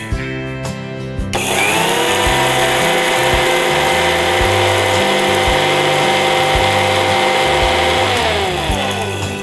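Mixer grinder motor spinning up about a second in and running at a steady whine as it dry-grinds roasted rice to flour in its small steel jar, then winding down near the end.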